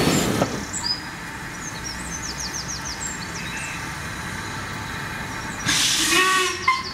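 The last of a passing train's rumble cuts off about half a second in, leaving a songbird's quick high chirps and trills, a run of rapid notes at about two to three seconds. Near the end a brief burst of hiss comes with a few short tonal calls.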